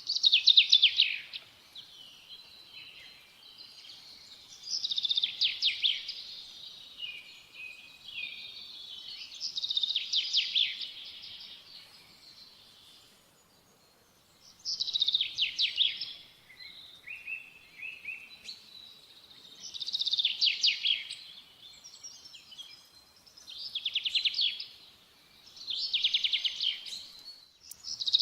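A songbird singing: short, rapid trilled phrases, each a second or two long, repeated every few seconds.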